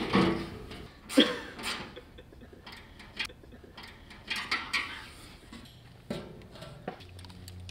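Hand wrench clicking and knocking against the bolts and brackets of a side-by-side's door while the door hardware is tightened: scattered sharp clicks and knocks at irregular intervals.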